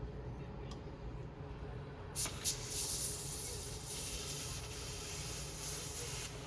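Can of compressed air (air duster) spraying to blow dust out of a desktop computer: a couple of short spurts about two seconds in, then a steady hiss of air.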